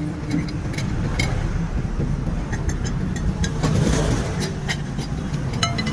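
A vehicle engine rumbling steadily, with scattered light metallic clicks and clinks over it and a louder, noisier swell about four seconds in.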